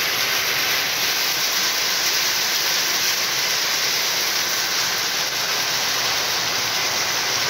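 Heavy rain pouring down in a steady hiss.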